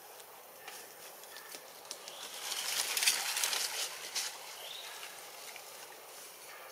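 Dry leaf litter rustling and crackling under a young macaque moving across the forest floor. It swells to a louder patch of crackles from about two to four seconds in. A few faint high chirps sound over it.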